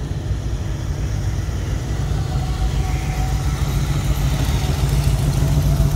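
1932 Ford roadster hot rod's engine running as the car rolls slowly past, a steady low drone that gets louder near the end as it comes close.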